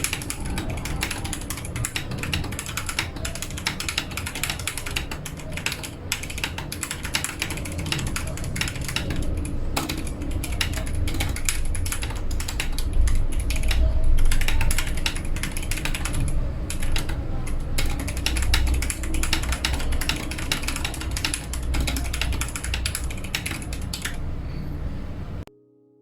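Fast, continuous typing on a Kemove 61 SnowFox mechanical keyboard with Gateron Brown tactile switches: a dense, irregular clatter of keystrokes that cuts off suddenly near the end.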